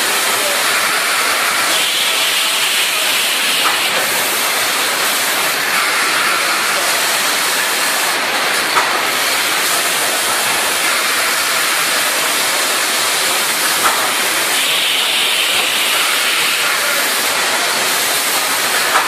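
Automatic sugar baling machine running: a steady loud hiss, with a short sharp click about every five seconds as it works through its cycle.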